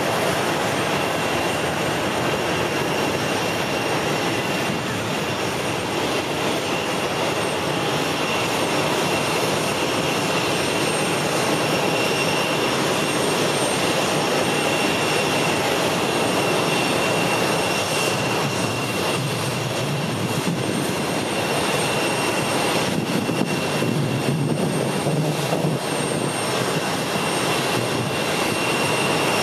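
Jet airliner engines running: a steady noise with a high-pitched whine on top.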